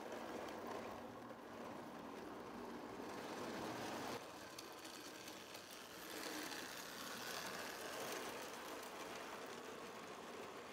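Marx 666 toy locomotive's electric motor running and the train's wheels rolling on the track as it pulls its cars past, a steady mechanical whirr. It changes abruptly about four seconds in and grows louder for a while as the train comes close. It is running smoothly, its motor and wheels freshly cleaned.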